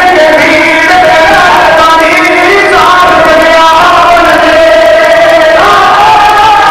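Men's voices chanting a mournful masaib lament together into a microphone: a lead reciter joined by the men around him, loud and drawn out on long, wavering held notes.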